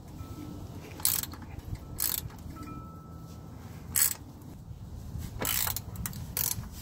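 Socket ratchet clicking in about five short bursts, one to two seconds apart, as the oil pan drain plug is snugged down under the car.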